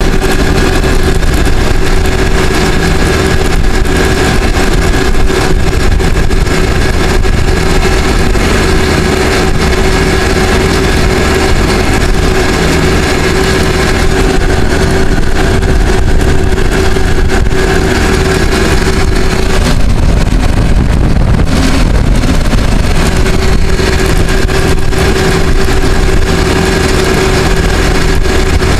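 Caterpillar 416C backhoe loader's diesel engine running steadily as the machine travels at road speed, heard loud from the operator's seat. A steady whine rides over the engine and drops out for a few seconds about two-thirds of the way through.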